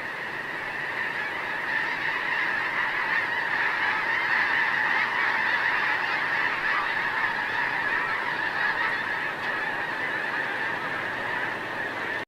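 A huge flock of snow geese calling all at once: a dense, continuous clamour of honking that swells a little over the first couple of seconds and then holds steady.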